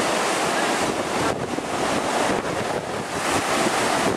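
Rough surf breaking and washing in, with wind buffeting the microphone.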